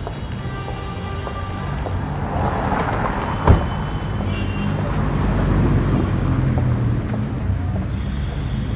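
Street traffic: a car passes, its tyre hiss swelling and fading, with a single sharp clunk about three and a half seconds in and another vehicle's low rumble after it.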